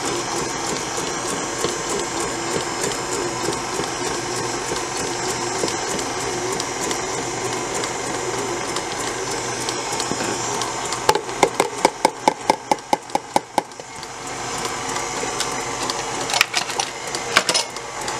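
Electric stand mixer with a wire whisk running steadily, beating flour into cake batter. Partway through comes a brief run of rapid, regular knocks, about five a second, and a few single knocks follow near the end.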